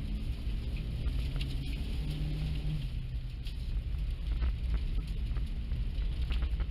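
Car driving over snow, heard from inside the cabin: a steady low engine and road rumble, with scattered light ticks of snow pattering against the body.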